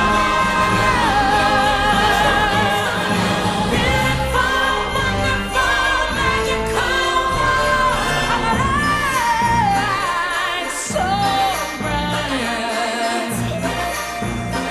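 Orchestral Christmas music with singing and jingle bells, played loud.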